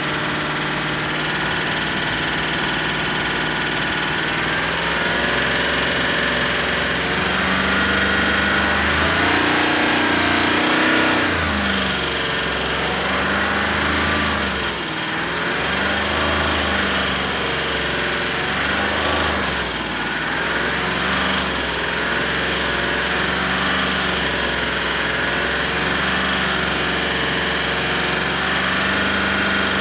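Range Rover SDV8 4.4-litre twin-turbo V8 diesel idling, then its engine speed rising and falling repeatedly from about five seconds in. The owner reports a knock or tap from this engine that is still there after new turbos, EGR valves and oversized big-end bearings.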